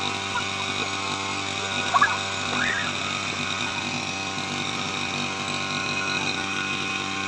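Grass trimmer (brush cutter) engine running steadily while cutting grass, with a couple of short high rising calls about two seconds in.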